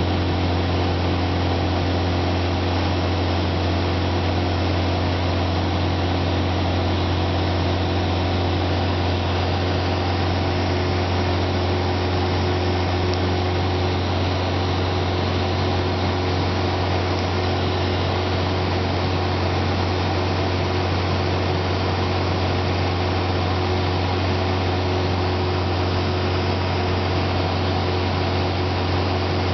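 Engine and propeller of a Jabiru light aircraft droning steadily in flight, heard inside the cabin: a deep, even hum with a few steady tones above it and a broad rushing noise, unchanging throughout.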